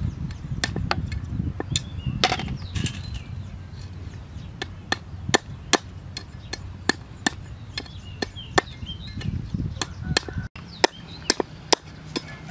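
A knife chopping on a round wooden chopping board, sharp regular knocks at about three strokes a second.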